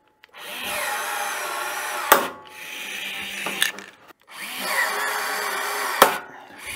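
Power rivet gun setting pop rivets through a plastic ski skin: the tool runs for a second or two, then the rivet's mandrel snaps off with a sharp crack. This happens three times, with the loudest snaps about two seconds in and again about six seconds in.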